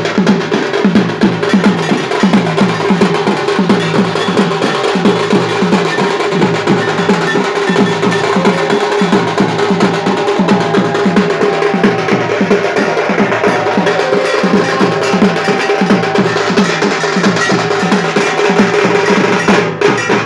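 Several dhak drums, large Bengali barrel drums, played together with thin sticks in a fast, steady beat that keeps on without a break.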